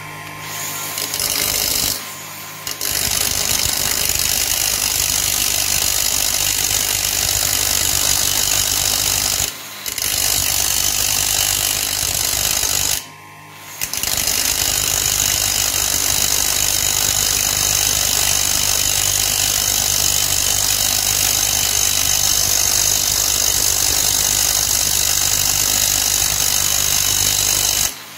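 Bench grinder wheel grinding down the hex head of a steel bolt spun against it in a cordless drill: a loud, steady hiss of metal on the abrasive wheel over the grinder's hum. The grinding breaks off briefly three times, about two seconds in, near ten seconds and around thirteen seconds.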